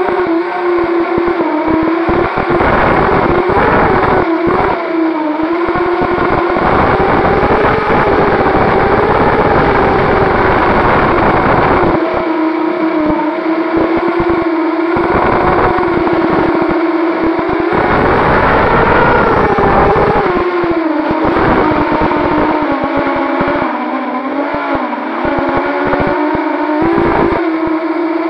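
Brushless motors and propellers of a 250-size FPV racing quadcopter, heard from its onboard camera: a loud whine whose pitch rises and falls with the throttle, with gusts of wind rumble on the microphone.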